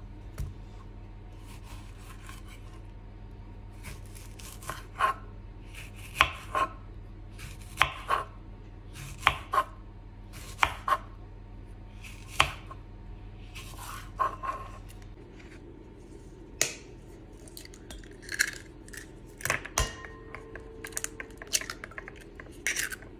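Chef's knife slicing peaches on a wooden cutting board, each cut ending in a sharp knock on the board, about one every second or so for some ten seconds. In the latter part, scattered lighter taps and clicks, ending with eggs cracked into a glass bowl.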